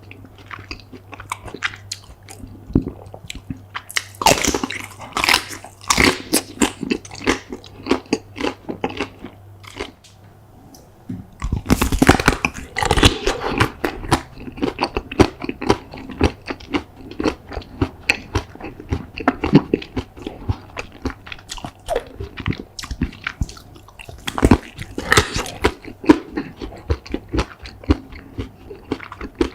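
Close-miked mukbang eating of chocolate treats: repeated crisp bites and crunches with chewing. About ten seconds in the sound drops briefly, then louder, denser bites and chewing follow.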